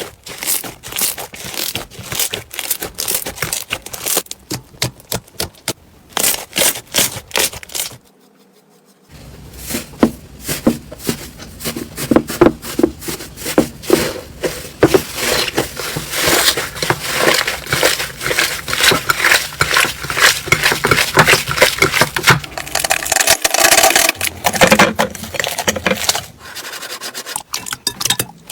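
Slime being squeezed and kneaded by hand, giving a dense run of sharp crackling and popping clicks. The crackling stops briefly about eight seconds in, then starts again and runs thicker.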